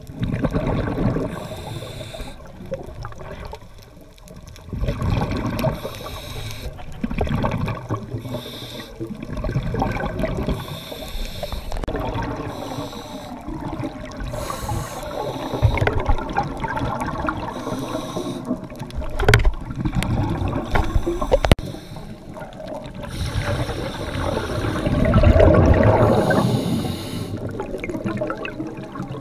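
Scuba diver breathing through a regulator underwater, exhaled air bubbling and gurgling out in repeated bursts.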